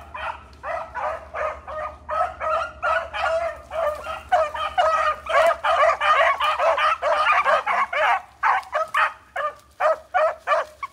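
Pack of beagles baying on a rabbit's scent trail, a rapid string of short yelping calls about two or three a second, thickest and loudest in the middle.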